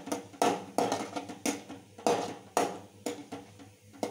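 A steel spoon scraping and knocking against an aluminium kadai while stirring cashew nuts in ghee, about two or three strokes a second, each with a brief metallic ring.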